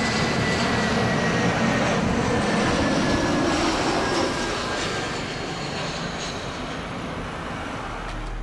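Airplane engine noise: a steady rushing roar with a faint whine that slowly falls in pitch, easing off in the second half like an aircraft passing.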